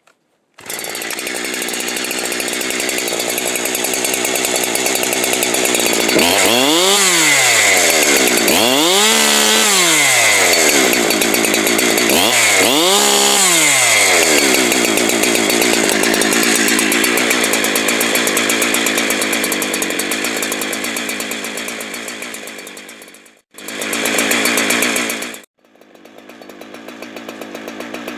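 Farmertec Holzfforma clone chainsaw's two-stroke engine running hard, swinging up and down in pitch three times, then dropping out briefly twice near the end.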